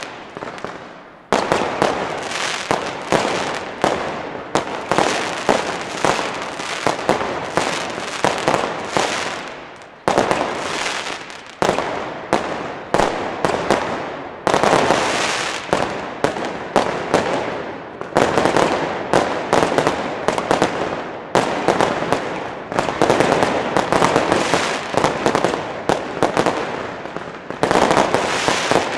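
Consumer firework batteries (cakes) firing continuously: rapid launch bangs and the dense crackling and popping of aerial star bursts. Fresh volleys start abruptly every few seconds.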